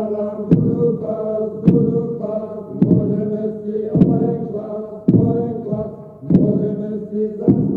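Droning chant-like singing, punctuated by a sharp thump about every 1.2 seconds; each thump starts a sustained tone that fades before the next.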